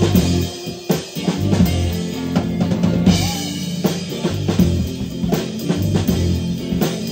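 Rock band playing an instrumental passage live: drum kit with bass drum and snare hits under electric guitars.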